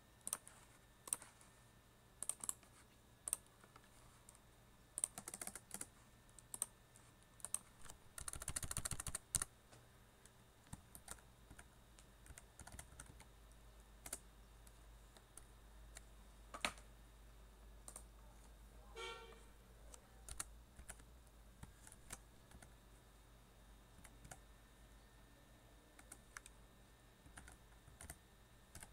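Faint computer keyboard typing: scattered single keystrokes, with a quick run of keys about eight seconds in.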